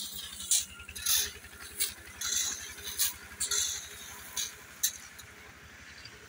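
Steel shovels scraping and crunching into a heap of crushed stone, about eight strokes in the first five seconds, then only the background rumble. A steady low engine rumble runs underneath.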